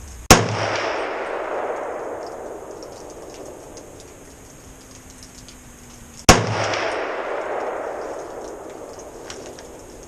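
Two shots from an AR-style pistol with a 10.5-inch Faxon Gunner-profile barrel chambered in .300 Blackout, about six seconds apart. Each is a sharp crack followed by an echo that dies away over about three seconds.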